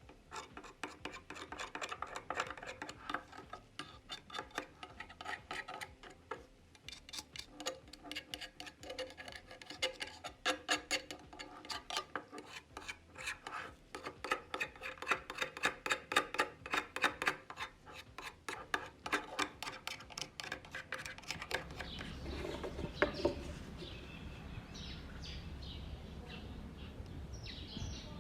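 Rapid, regular rubbing or scraping strokes, several a second, the hand work of sanding or scraping the model car's body. About three-quarters of the way in, the strokes stop and a steady noisy background takes over, with a few short chirps near the end.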